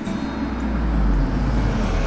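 A taxi driving up a paved driveway: engine and tyre rumble that swells about a second in, with soft guitar background music under it.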